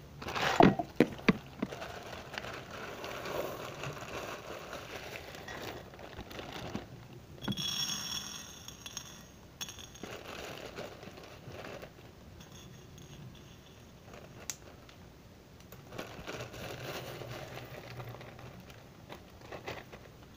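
A plastic bag of small plastic beads being handled and rummaged: the plastic crinkles and the beads click and rattle, with a few sharper clicks in the first second or two.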